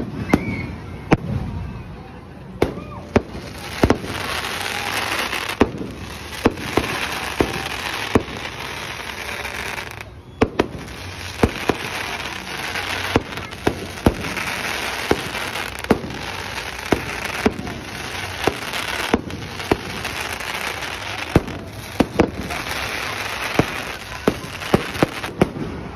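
Fireworks display: a rapid string of aerial shell bursts, sharp bangs coming about once or twice a second, over a dense crackling hiss from crackle effects, with a brief lull about ten seconds in.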